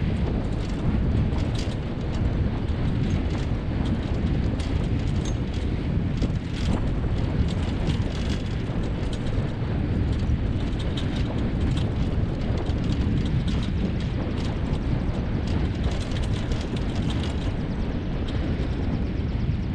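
Steady rumble of a dog-drawn rig rolling over a rough dirt track behind a running team of Siberian huskies, with wind on the microphone and scattered small clicks and rattles.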